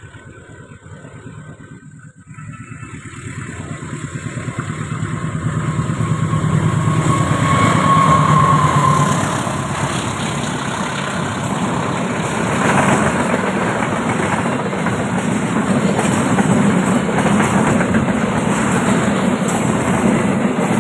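Diesel-hauled express passenger train approaching and passing close by at speed on double track. The locomotive grows louder over the first several seconds, with a brief steady whine about eight seconds in. Then the carriages' wheels rumble and clatter steadily over the rails as the coaches go past.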